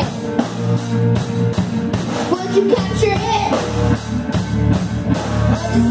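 A small rock band playing live: electric guitar over drum kits keeping a steady beat, with a girl singing briefly around the middle.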